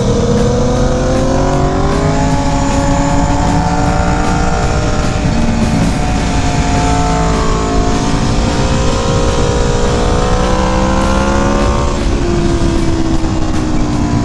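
Aprilia sportbike engine running through an aftermarket exhaust under way, its revs rising and falling as the rider works the throttle, climbing steadily and then dropping sharply about twelve seconds in. A steady rush of wind and road noise runs underneath.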